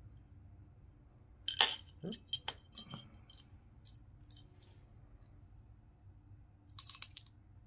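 Steel parts of a Faxon low-mass AR-15 bolt carrier group clicking and clinking together as it is reassembled by hand. There is a sharp click about a second and a half in, several lighter clicks over the next few seconds, and a short cluster of clicks near the end.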